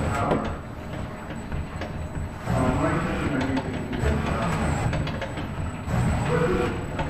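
Indistinct voices talking over a steady background hum.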